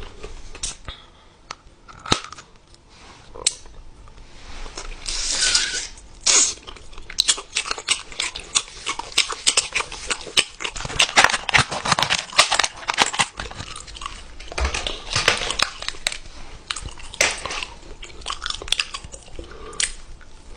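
Close-up eating sounds: wet chewing and many sharp crunches in quick runs, thickest in the middle and toward the end.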